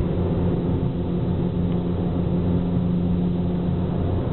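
Car engine and tyre noise heard from inside the cabin while driving, a steady drone with a constant low hum.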